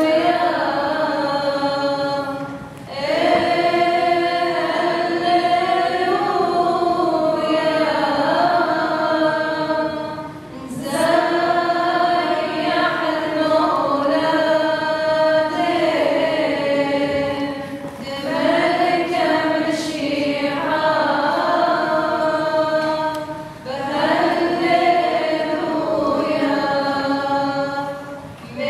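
Voices singing a slow liturgical chant in unison, holding long notes that slide gently in pitch. The singing comes in five long phrases, with a brief breath pause between each.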